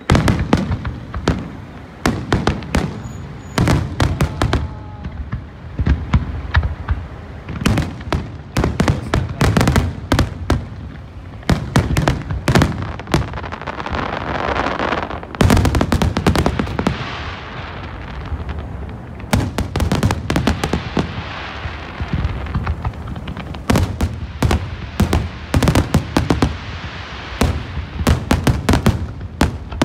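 Large fireworks display: aerial shells bursting in rapid, irregular bangs and booms. Around the middle the bursts come so thick that they run together into a continuous rumble.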